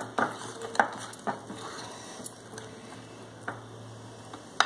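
Wire whisk stirring thick cake batter in a bowl: soft wet swishing with a few light taps of the whisk on the bowl, and one sharper clink near the end.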